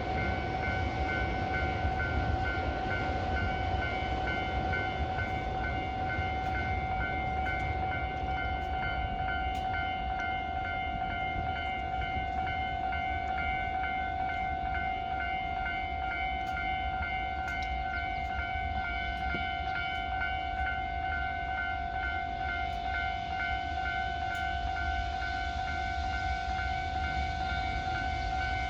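Japanese railway level-crossing warning bell ringing without pause, an even, repeating electronic ding, over a low rumble.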